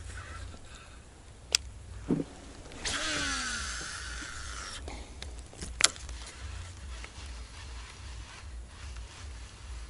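Fishing reel whirring for about two seconds with its pitch falling, framed by sharp clicks about a second before and a second after.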